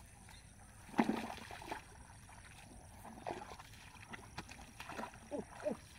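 Bare feet squelching and splashing through shallow water and mud, a few irregular steps, the loudest about a second in. Two short faint squeaks come near the end.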